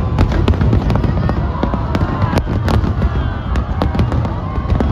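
Aerial fireworks display: a dense run of overlapping bangs and sharp cracks from bursting shells over a continuous low rumble of booms.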